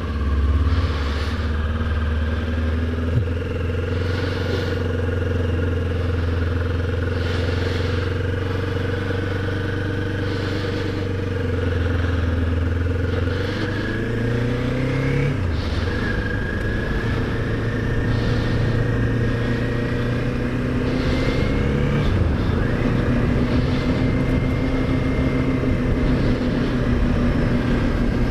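Kawasaki Ninja 400's parallel-twin engine running at a steady pitch, then rising in pitch about halfway through and again about three-quarters of the way through.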